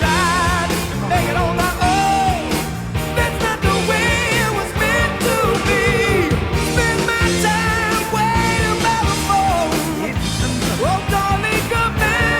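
Rock music with a singer, a steady beat and held bass notes.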